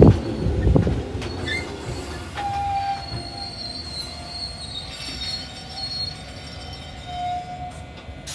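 A Tobu 6050-series electric train pulls into the station and slows, its wheels rumbling with a few knocks that fade over the first second. Its brakes then squeal in several high, thin notes that come and go as it rolls to a stop.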